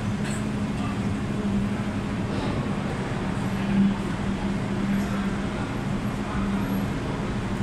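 Steady machinery drone inside a ship's vehicle deck, a constant low hum with one strong unchanging tone under a wash of noise.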